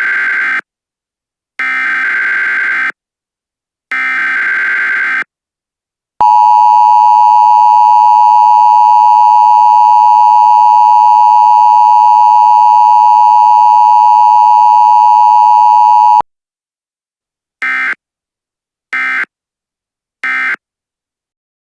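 Emergency Alert System tones. Three buzzy, screeching SAME header data bursts come about a second apart, then the loud steady two-tone attention signal is held for about ten seconds, then three short data bursts end it.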